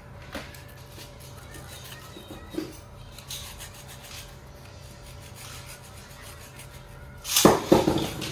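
Utility knife blade sawing through a thick block of foam sponge: soft scratchy rubbing, then a much louder rasping stretch about seven seconds in.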